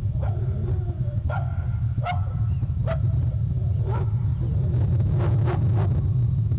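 A series of short animal calls, barks or squawks, at first about one a second and then quicker and more crowded near the end, over a steady low rumble.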